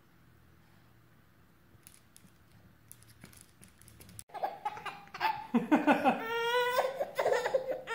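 Near silence for about four seconds, then a baby laughing and squealing in a run of high-pitched bursts.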